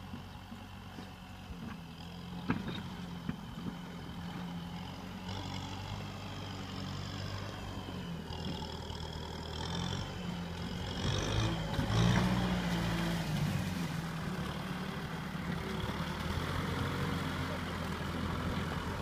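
Farm tractor engine running steadily as the tractor drives across a field and through mud, growing louder about twelve seconds in, then holding steady.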